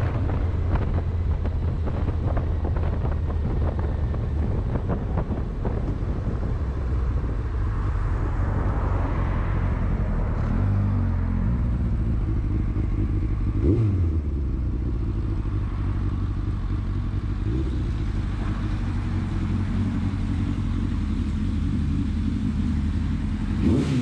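1999 Yamaha FZS600 Fazer's inline-four engine running while riding, with wind buffeting the microphone at first. It then settles to a lower, steadier note at low speed, with a short rev about halfway through and another near the end.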